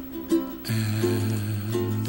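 Music with plucked-string notes, and a low note held through the second half.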